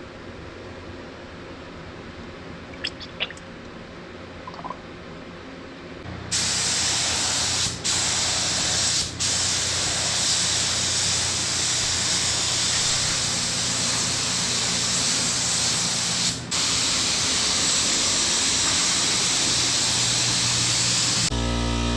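Compressed-air paint spray gun spraying clear coat: a loud, steady hiss starts about six seconds in. It breaks off briefly three times as the trigger is let go and stops just before the end. A few faint clicks come before the spraying starts.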